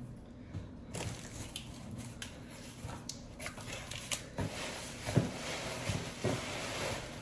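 Cardboard shipping box being torn open by hand: flaps and tape ripping, cardboard crackling and rustling, with several short knocks, the loudest about five seconds in.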